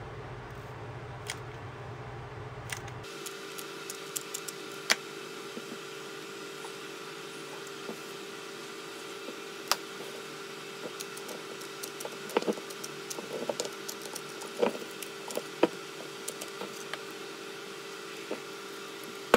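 Hands working a hot glue gun and fitting a metal faceplate to a wood-and-resin blank: scattered clicks and taps, with bouts of rubbing and squishing. Under them runs a steady hum that begins about three seconds in.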